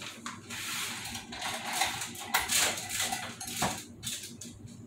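Kitchen items handled with clattering and rustling: irregular scraping noise with a sharp knock at the start and another about three and a half seconds in.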